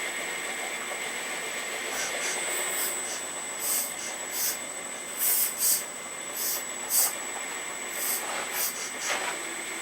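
Hydraulic system of an Earth Digger 4200XL RC excavator running with a steady high whine from its pump, cut by about ten short hisses as the control valves are worked.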